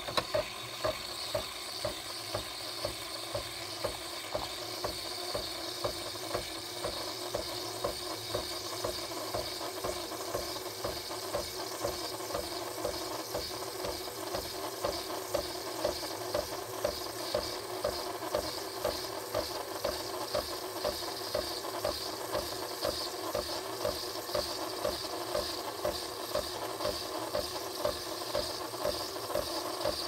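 Nespresso Lattissima Pro coffee machine running, its pump going steadily with a regular pulse about twice a second.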